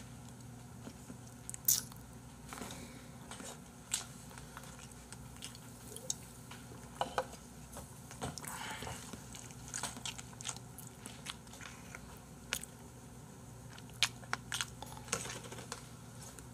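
Close-miked eating of bossam: chewing and crunching, with scattered sharp clicks of chopsticks and dishes.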